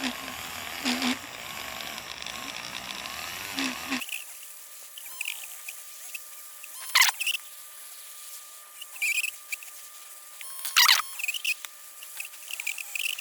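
A small electric polishing tool buffing a clear plastic part with fine polishing compound, making an odd squeaky, chirping, scratchy sound. The fuller low rumble cuts out about four seconds in, leaving high squeaks, a faint steady whine and a couple of sharp scrapes.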